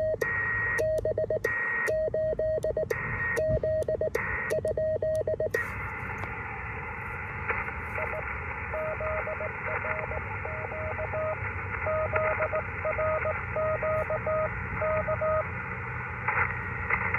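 Morse code from a portable HF transceiver. For the first five seconds or so, his own sending on the paddle is heard as sidetone beeps in short groups, with the receiver hiss cutting out between them. Then comes steady band hiss, and from about 8 to 15 seconds a weaker station's Morse reply.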